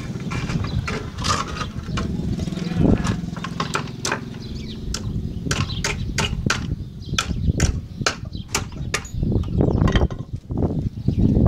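An irregular series of sharp knocks and taps, about two dozen, over a low rumble.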